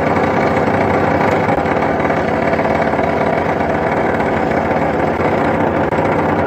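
A machine running with a steady, loud motor drone that stays even throughout, with no breaks or impacts.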